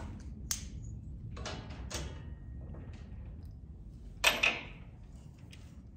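Hand tools clinking and knocking against the metal grill guard and tractor frame while bolts are worked on: a few light clicks in the first two seconds, then a louder double clank about four seconds in.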